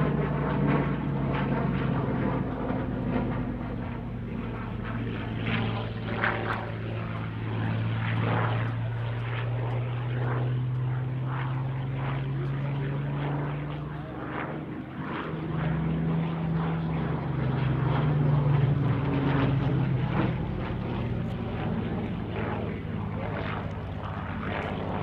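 Hawker Hurricane's Rolls-Royce Merlin V12 engine running hard as the fighter flies aerobatics overhead. Its pitch and loudness rise and fall with the manoeuvres: a dip about halfway through, then swelling louder again.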